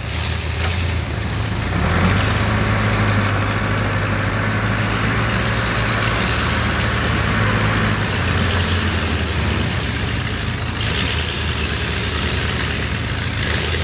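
Lifted Ford mud truck's V8 running loud through open headers while bogging, its engine note stepping up about two seconds in and holding at high power.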